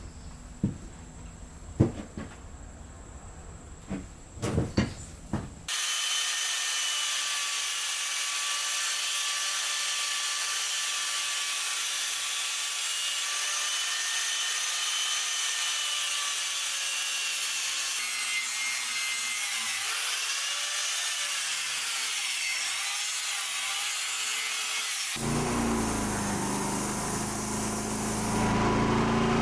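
A few knocks, then a saw cutting through wood, running steadily for about twenty seconds; the sound changes and grows louder near the end.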